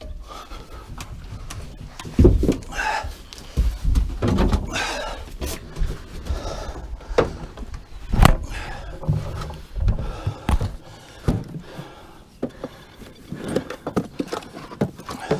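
Irregular knocks and thuds of gear being moved about aboard a small boat, several sharp ones spread through, over a low rumble.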